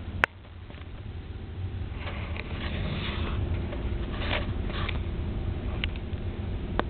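A sleeping person snoring: two long noisy breaths, about two seconds in and again past four seconds, over a steady low hum. A sharp click right at the start.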